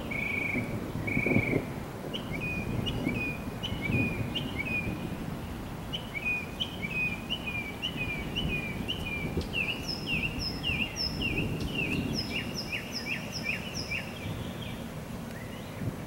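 Songbirds chirping in a long run of short, repeated notes, about two a second, over a continuous low rumble of distant thunder.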